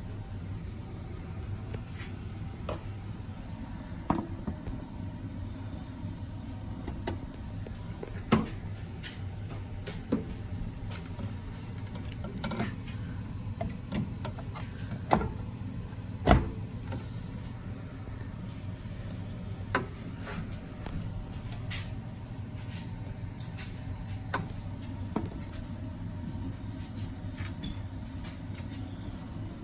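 Scattered sharp clicks and knocks of computer parts being handled while a graphics card is fitted, the loudest about halfway through, over a steady low hum.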